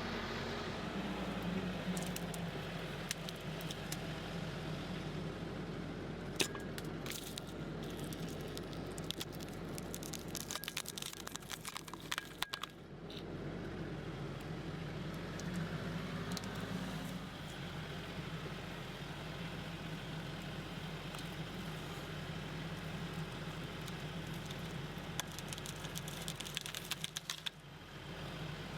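Tractor engine running steadily, with two stretches of sharp crackles and snaps laid over it, from about six to thirteen seconds in and again near the end.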